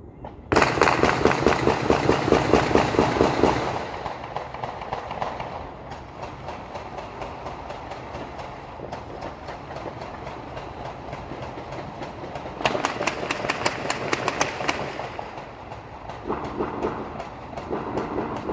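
Two long, rapid strings of sharp bangs, each lasting two to three seconds: one starts half a second in, the other about twelve seconds in. Fainter scattered popping carries on in between.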